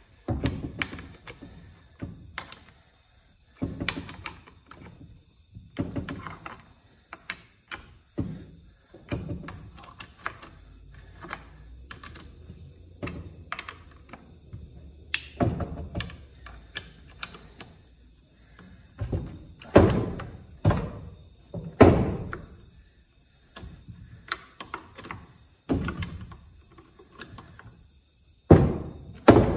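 Irregular knocks and clicks of a scrench and hands working on a Stihl MS362 chainsaw's bar nuts and chain tensioner on a wooden workbench, setting the chain tension. The loudest knocks come around twenty seconds in and just before the end.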